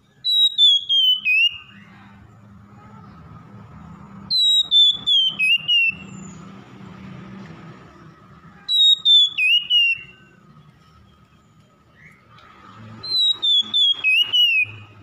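Oriental magpie-robin singing the same whistled phrase four times, each a quick run of clear notes stepping down in pitch and lasting about a second and a half, with pauses of a few seconds between phrases.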